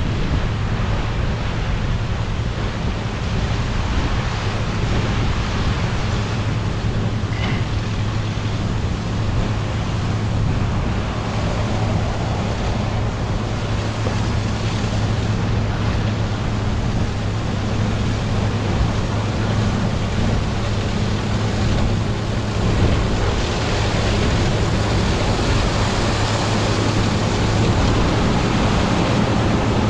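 John Deere 9660 STS combine running steadily while harvesting corn, a constant low engine hum under a wide rushing noise of the threshing machinery. It grows a little louder in the last few seconds.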